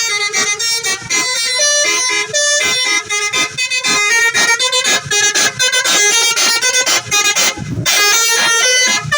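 Bus telolet horn, the Indonesian multi-tone musical air horn, playing a fast tune of short notes.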